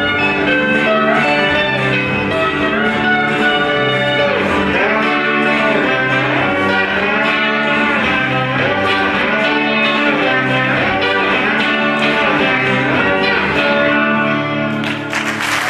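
Pop-rock band music led by guitar, with applause breaking out near the end.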